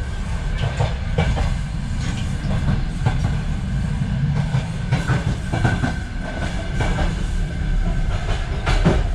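Ukrainian Railways sleeper carriage running along the track, heard from inside the car: a steady low rumble with irregular knocks and rattles and a faint steady high tone.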